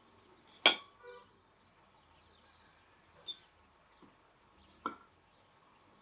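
Metal cutlery clinking against a plate three times while eating: one sharp clink about a second in that rings briefly, then two lighter clinks later.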